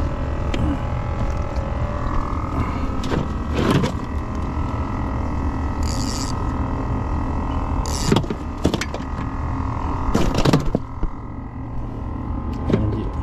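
A steady engine drone with a fixed hum and low rumble, broken by several sharp knocks and clatters of gear being handled on the boat, and a brief hiss about six seconds in.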